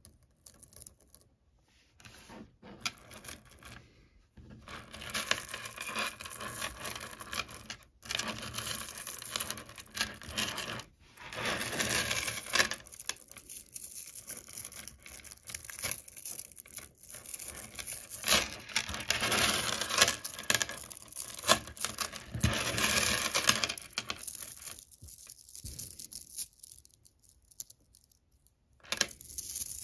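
Hundreds of small magnetic ferrite pebbles clicking, crunching and grinding against each other as they are pulled apart, squeezed in the hand and let fall back onto the clump. The clatter comes in dense spells of a few seconds, with short pauses between them.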